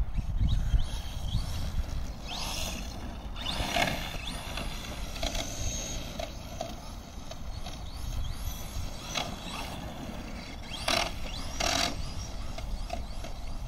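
Electric drive motor of a Rival MT10 RC monster truck whining up in short rising bursts as it accelerates across grass, with a couple of sharper, louder bursts near the end. Wind rumbles on the microphone underneath.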